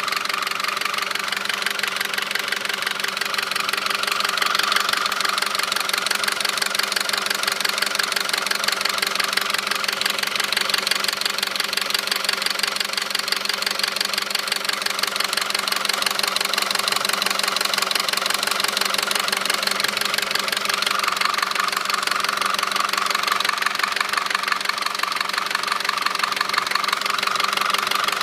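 2009 Audi A4's 2.0-litre turbocharged four-cylinder engine running at a steady speed with a fast, even knocking. The dealer, having found metal flakes around the cam lobes, recommended a new engine.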